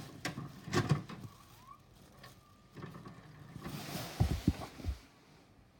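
Noise from the start of VHS tape playback: hiss broken by a few sharp clicks and thumps in the first second, then a cluster of low thumps a little after four seconds in.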